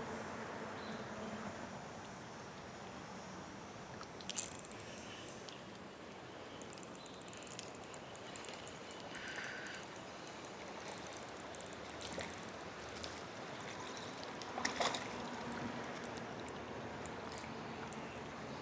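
Steady hiss of flowing river water. A few sharp clicks and knocks stand out, loudest about four seconds in and again near fifteen seconds, with a short run of fast, faint ticking in between.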